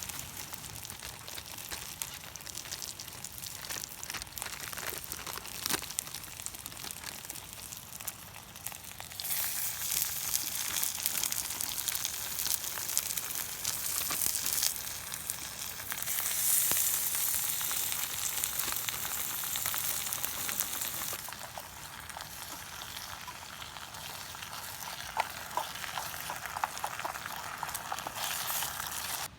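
Food sizzling and spitting in a hot frying pan, with scattered crackles. The sizzle grows louder about nine seconds in and eases off a little after about twenty-one seconds.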